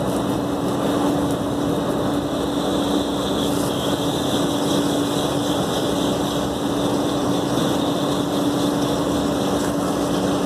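Water from a hose spraying and splashing onto an air-cooled chiller's finned condenser coil during a coil wash, a steady hiss over a steady hum.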